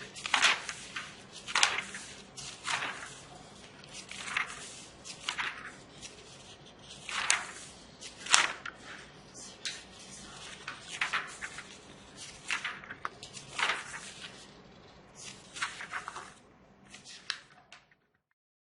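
Prockey felt-tip marker writing on the paper pages of a textbook: about a dozen short, scratchy strokes at irregular intervals.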